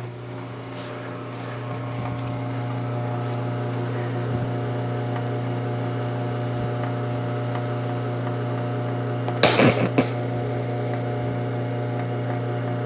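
A steady mechanical hum from a running motor or engine, building over the first couple of seconds and then holding even. There is one brief louder noise about nine and a half seconds in.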